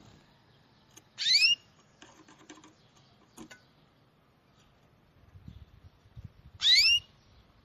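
A bird giving a short, rising whistled call twice, about five and a half seconds apart, with a few faint ticks in between.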